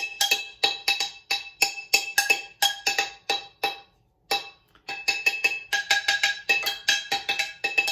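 A heavy, thick-bottomed stainless steel cooking pot held upside down and beaten with a wooden drumstick, about four hits a second, each a metallic clank with a short ring. The beating stops briefly about four seconds in, then resumes at the same pace.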